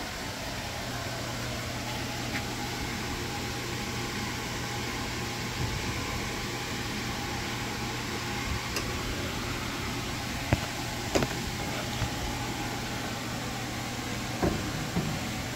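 Steady low hum in the background, with a few sharp knocks and clunks from a car door on gas shocks being handled and swung, about ten seconds in and again near the end.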